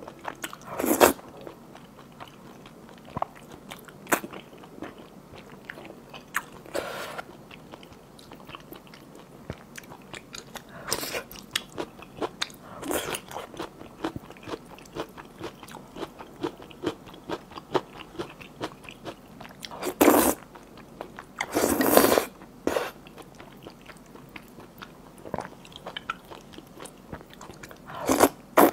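Close-miked slurping of thick noodles coated in a sticky sesame-paste malatang sauce, with wet chewing and small mouth clicks between the slurps. Loud slurps come every few seconds, the loudest two about 20 and 22 seconds in.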